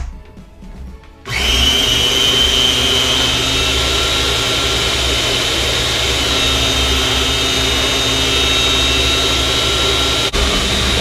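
Electric food processor starts about a second in and runs steadily, blending a thick cream cheese, cream and pumpkin puree cheesecake batter until smooth, with a momentary dropout near the end.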